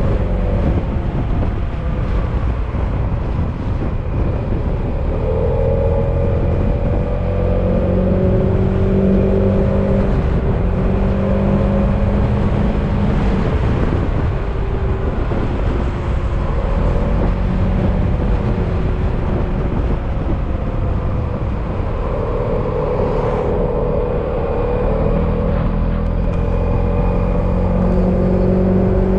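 Yamaha XMAX maxi-scooter's single-cylinder engine running on the move, its tone drifting gently up and down with the throttle, over a steady low rumble of wind and road.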